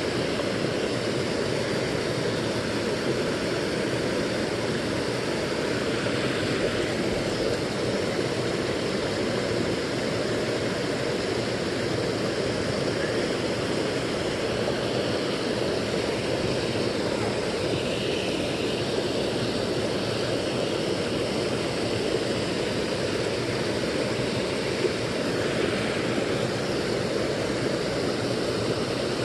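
Creek water spilling over a low cascade of logs and rocks, a steady rushing.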